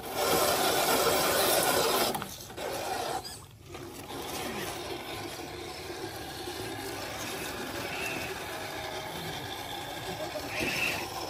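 Rasping, scraping noise of a 1/10-scale RC crawler working against roots and dirt after getting stuck. It is loudest for the first two seconds, dips briefly, then goes on quieter and steady.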